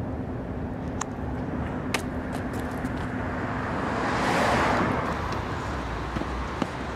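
City street traffic noise, with a car passing by that swells and fades about four seconds in. A couple of sharp clicks come before it.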